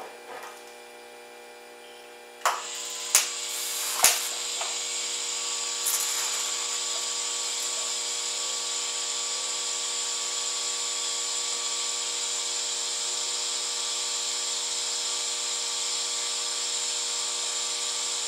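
TIG welding arc on a steel tractor wheel, tacking a new steel patch in place: a few sharp clicks about two and a half to four seconds in, then a steady buzzing hum with a hiss as the arc runs.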